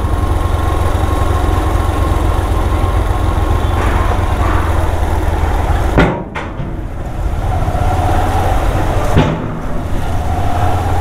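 Motorcycle engine running at low speed, with a steady low rumble, as the bike rolls up a ferry's steel loading ramp onto the vehicle deck. There is a sharp knock about six seconds in, as the wheels come onto the ramp, and another about nine seconds in.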